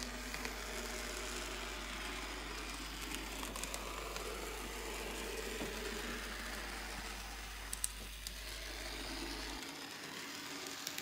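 N gauge Class 73 model locomotive running along the track: a steady whir from its small electric motor and gearing, with a few faint clicks as the wheels cross rail joints and points.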